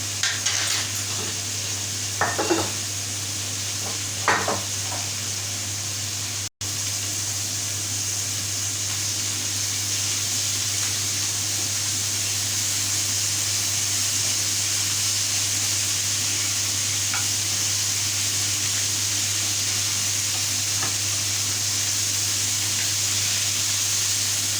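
Food frying in a hot pan, a steady sizzle, with a few light knocks of a utensil against the pan in the first few seconds.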